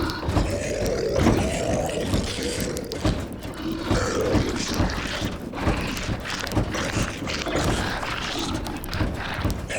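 Layered zombie sound effects: guttural moaning and growling voices over a dense bed of rattling knocks and creaks.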